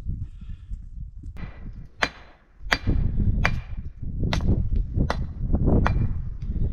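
Six hard metal-on-stone blows, one every second or less, starting about two seconds in, each with a short metallic ring: a long-handled pick breaking rock. Before them, stones knock and scrape as a block is set into a dry-stone wall.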